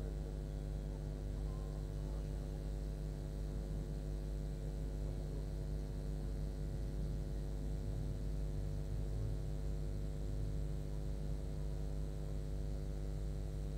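Steady, unchanging electrical hum and buzz, a low drone with a row of even overtones above it. It does not rise or fall.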